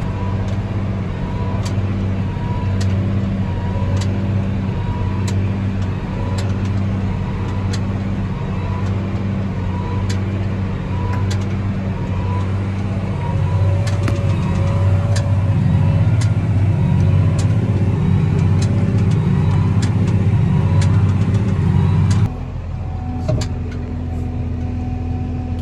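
Case IH tractor engine running steadily under load in the cab while pulling a Krone square baler through straw, with a regular chirp repeating about every two-thirds of a second and scattered sharp clicks. Near the end the sound drops suddenly to a quieter, lighter engine note.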